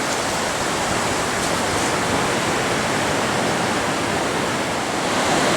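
Steady rushing noise of ocean surf breaking, with no separate crashes standing out.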